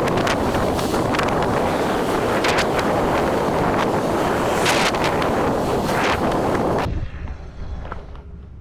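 Heavy wind buffeting the microphone: loud, even rushing noise with a few sharp knocks, cutting off suddenly about seven seconds in.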